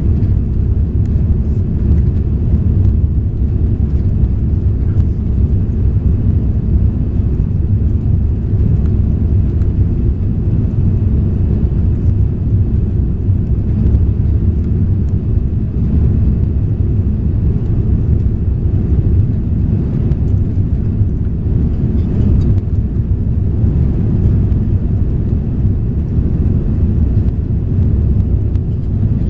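Steady low rumble inside the cabin of an Airbus A340-300 climbing after takeoff: its four CFM56-5C engines and the airflow over the airframe.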